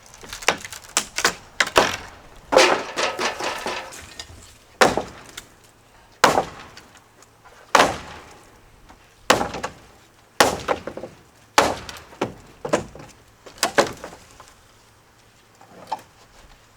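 Repeated hard blows breaking apart a wooden porch structure during demolition. A cluster of cracking and rattling comes in the first few seconds, then single heavy strikes land about every second and a half, fading out near the end.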